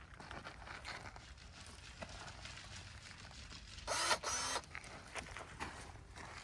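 Desert willow twigs and leaves rustling as a limb is pruned and handled, with a louder swish of foliage in two quick pulls about four seconds in.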